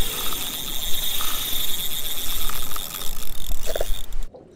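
Wind buffeting the microphone on an open offshore boat, with sea noise and a steady high-pitched whine. About four seconds in it cuts off to a much quieter scene.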